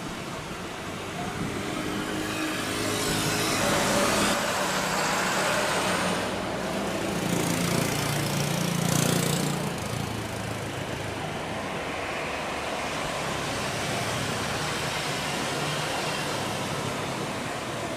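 Road traffic: vehicles passing by, with two louder passes, a few seconds in and about halfway through, over a steady background hum.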